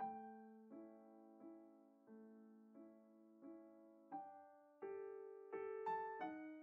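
Quiet background piano music: slow, evenly spaced notes and chords about two thirds of a second apart, each left to ring and fade, climbing higher and growing fuller near the end.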